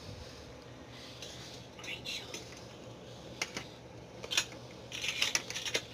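Light clinks and clatter of small hard objects being handled: scattered sharp clicks, with the loudest a little past the middle and a busier run near the end.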